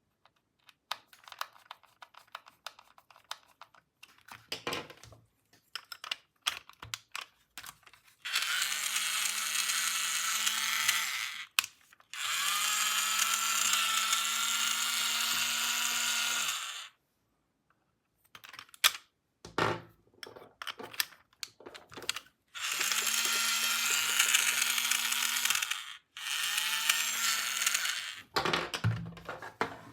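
Small battery motor of a toy electric screwdriver whirring in four separate runs of a few seconds each, spinning up briefly at the start of each run, with clicks and taps of plastic parts being handled between the runs.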